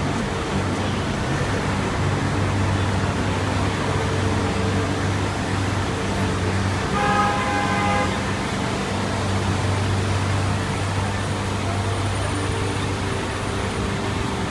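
City street traffic with a steady low engine hum, and a car horn sounding once for about a second, about seven seconds in.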